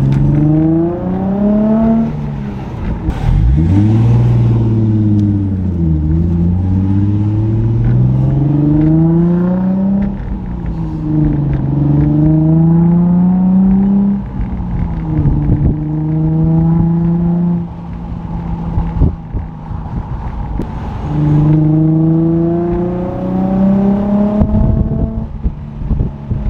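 Nissan 350Z's VQ35DE V6, breathing through Berk resonated test pipes in place of the catalytic converters, heard from inside the cabin while driving. The engine note climbs in pitch under throttle and drops back several times, holds steady for a few seconds in the middle, then eases off before a last pull near the end.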